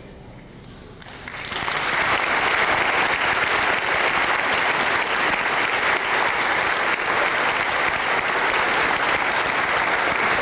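A group of people applauding, starting about a second and a half in and holding steady.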